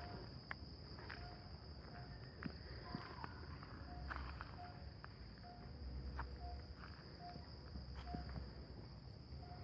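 Steady high-pitched night chorus of crickets, with a short low hooting note repeating evenly about one and a half times a second, a 'nguk-nguk' call from an unseen night animal. A few faint clicks from footsteps.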